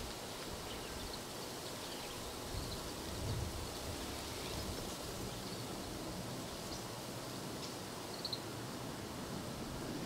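Steady outdoor background hiss with faint, scattered high chirps from small birds, including a short double chirp near the end. A brief low rumble about three seconds in.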